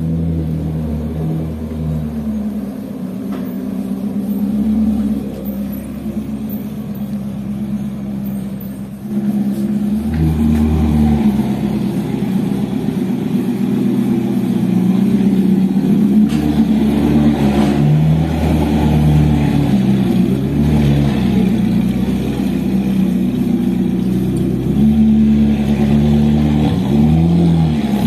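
Ferrari sports car engine running at low speed as the car manoeuvres, louder from about ten seconds in, with a short rev that rises and falls near the end.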